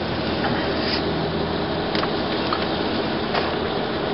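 Steady road and tyre noise of a car driving on a wet street, heard inside the cabin, with a low engine hum underneath and a few faint ticks.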